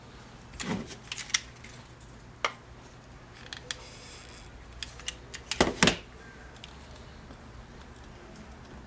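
Scattered clicks and light knocks of small hard parts and tools being handled and set down on a workbench, with a cluster of louder knocks about six seconds in.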